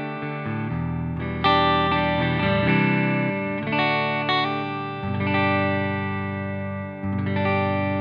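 Harley Benton Fusion-III electric guitar on a clean tone, its neck humbucker in full humbucker mode. A handful of chords are struck and left to ring, a new one every second or so.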